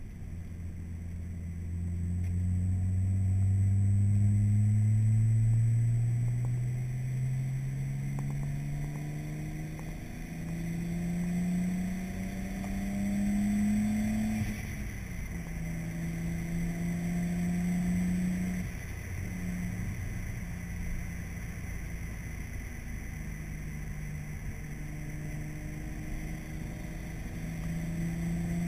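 Car engine heard from inside the cabin while driving: its note climbs as the car accelerates for about the first fifteen seconds, drops a little past halfway, then holds fairly steady at cruising speed over road rumble.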